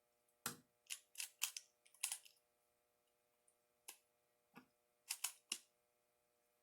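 Plastic twisty puzzle being turned quickly by hand: about ten short, sharp clicks at uneven intervals, some in quick pairs and threes.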